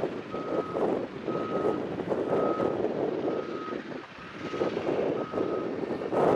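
Backup alarm of a Caterpillar 972M XE wheel loader beeping steadily as it reverses, about one single-pitched beep a second, over the loader's diesel engine. The engine dips briefly about two-thirds of the way through and rises again near the end.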